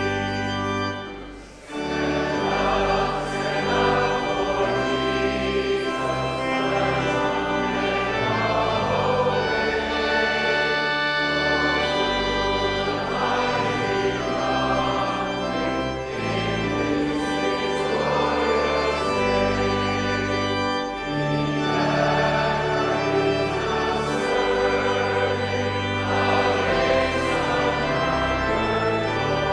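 Organ playing held chords with voices singing along; the music breaks off briefly about a second and a half in, then goes on.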